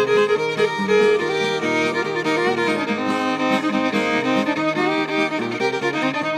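Instrumental break of a folk song: a bowed fiddle plays the melody over plucked string accompaniment, with no singing.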